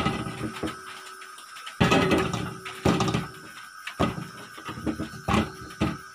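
Chunks of bottle gourd and potato put into a stainless steel bowl on a wooden table: a handful of separate dull thumps and knocks.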